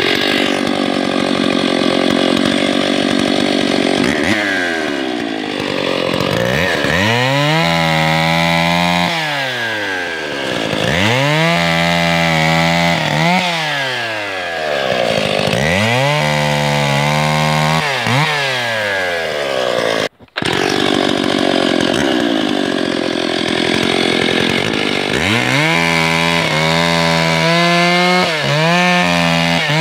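A 51 cc Stihl two-stroke chainsaw runs at full throttle and cuts through logs. Its pitch sags and climbs back again and again as the chain bites into each cut and comes free. The sound drops out for a split second about two-thirds of the way through.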